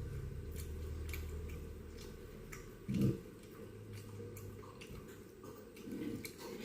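A person chewing food close to the microphone, with small wet mouth clicks. A brief sound of the voice comes about three seconds in.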